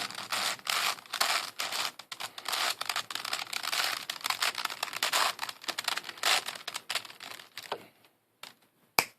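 V-Cube 7 (7x7 puzzle cube) being turned quickly, its plastic layers clicking and clacking in a dense, uneven run that stops about eight seconds in, followed by one sharp click near the end. The cube is freshly reassembled and being test-turned.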